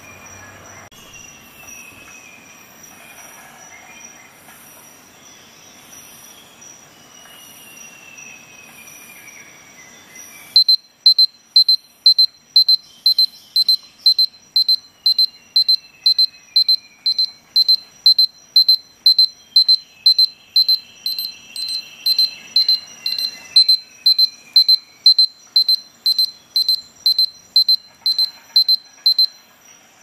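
Victorinox Voyager Swiss Army knife's built-in digital alarm beeping: a single high electronic tone repeated about twice a second, starting about ten seconds in and stopping just before the end.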